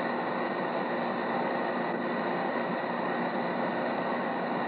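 Steady hiss with a faint underlying hum and no distinct events: the constant background noise of an old film soundtrack.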